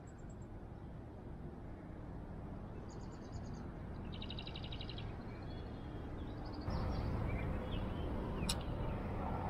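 Small songbirds trilling: a brief high trill about three seconds in and a faster, evenly pulsed one about four to five seconds in. Underneath is a low rumbling noise that slowly grows louder and steps up about seven seconds in. There is a single sharp click near the end.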